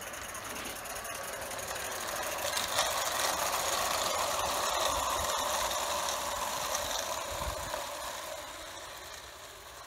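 Bassett-Lowke Enterprise live-steam 4-4-0 locomotive and its four wooden-bodied coaches running past on the garden railway track, a steady mix of steam exhaust and wheel clatter on the rails. It grows louder as the train comes close, peaks a few seconds in, then fades as the train draws away.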